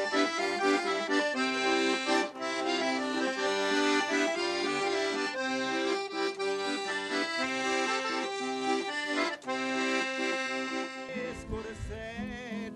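Piano accordion, a red Paolo Soprani, playing a traditional folk tune with melody and chords together. About eleven seconds in, the accordion passage ends and the music changes.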